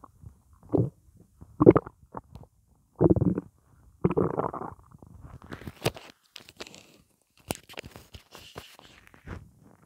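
Hungry human stomach gurgling and rumbling in irregular watery bursts, the loudest in the first few seconds, then fainter quick clicks and crackles. The stomach is empty of food, holding only water.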